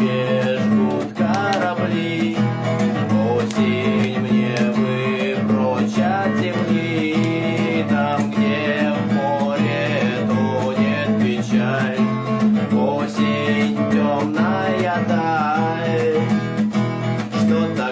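Acoustic guitar playing a song steadily, with a wavering melody line over the chords.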